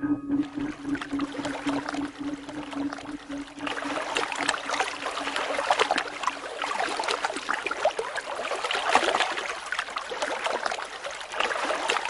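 Water splashing and lapping in a dense, irregular patter of small splashes, growing busier about three and a half seconds in.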